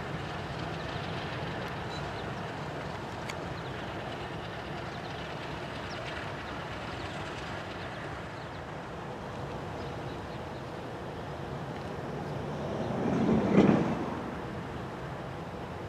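ALCo RS32 diesel locomotives pulling freight cars at low speed, with a steady diesel rumble throughout. About thirteen seconds in, a brief swell of rushing noise rises and falls away.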